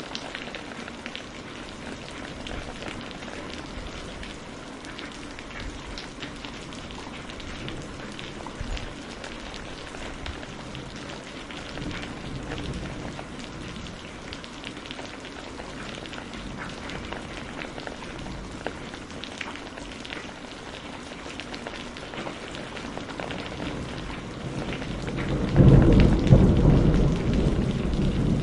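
Steady rain falling, a dense hiss with drops pattering. About 25 seconds in, a loud low rumble of thunder swells up and rolls on to the end.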